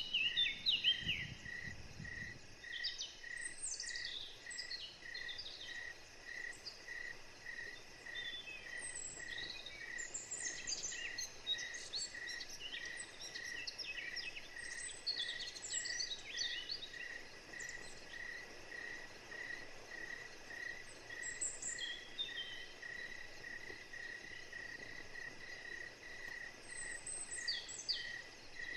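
Forest ambience: an insect chirps at an even rate of about two chirps a second, and birds call and sing in scattered short phrases over it. There is a brief low rumble in the first two seconds.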